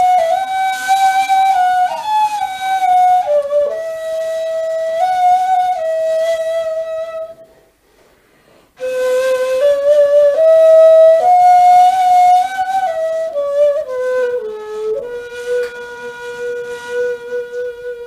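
Solo end-blown reed flute playing a slow free melody, moving in steps between held notes. About halfway through it breaks off for a second, and it closes on one long, lower held note.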